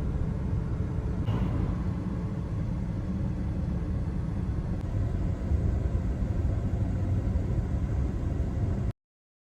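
Steady low vehicle rumble with no distinct engine note, cutting off abruptly about nine seconds in.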